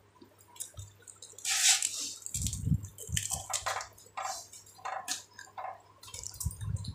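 Hands mixing and eating rice from steel plates: soft wet squishing with scattered short clicks and scrapes, and a louder rustle about a second and a half in.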